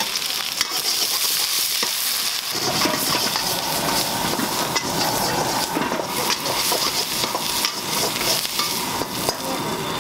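Sliced red onions and garlic sizzling in hot oil in a steel wok, with a metal spatula stirring and scraping against the pan. The sound grows fuller about two and a half seconds in.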